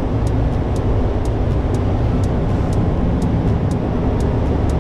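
Steady road and engine rumble inside a moving truck, with a faint regular ticking about four times a second.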